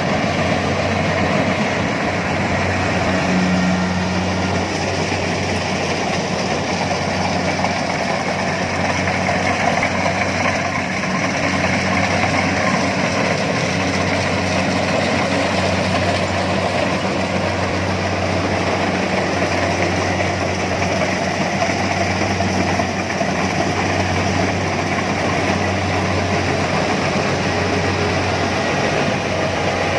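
Rice combine harvester running steadily: a constant low engine drone with a broad mechanical whir over it.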